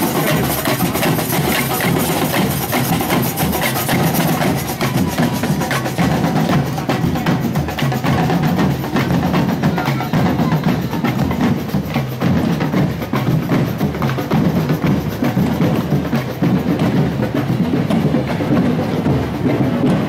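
Parade drum troupe playing marching snare and bass drums with hand percussion, a dense, steady rhythm of sharp strokes.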